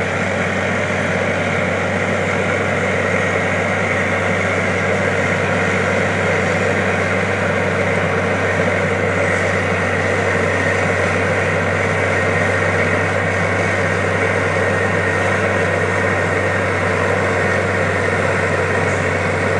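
Road milling machine (cold planer) at work: a steady diesel engine drone mixed with the grinding noise of its cutting drum chewing up the asphalt, unchanging throughout.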